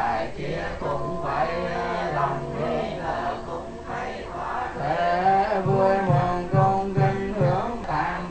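Buddhist monks chanting a Vietnamese Mahayana (Northern-tradition) sutra liturgy together, male voices on a slow sung melody, a little louder in the second half.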